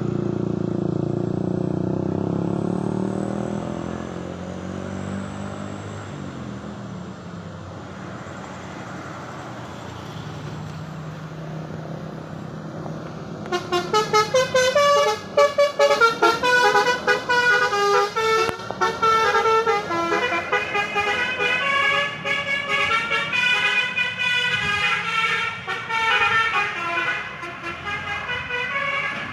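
A heavy truck engine runs. From about halfway, a vehicle's multi-tone horn sounds a rapid, choppy string of changing notes that carries on to the end.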